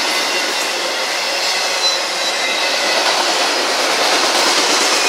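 Autorack freight cars rolling past on steel wheels: a steady, loud rolling noise of wheels on rail, with a few faint, brief high squeals.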